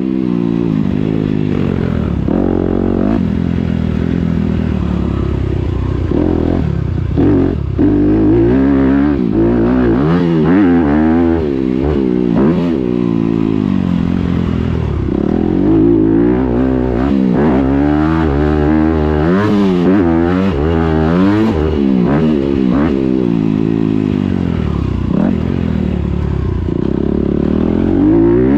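Four-stroke motocross dirt bike engine ridden hard, its pitch repeatedly climbing and dropping back as the throttle opens and shuts and the rider shifts gears. Short clattering knocks come and go over it.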